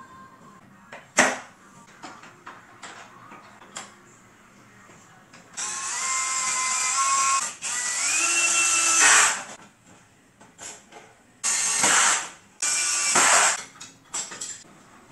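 Cordless drill running into the corner joint of a wooden drawer frame: two longer runs of a few seconds, the second rising in pitch, then two short bursts. A sharp knock about a second in.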